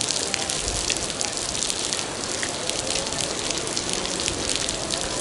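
Heavy typhoon rain falling steadily, with many sharp ticks of drops striking close to the microphone.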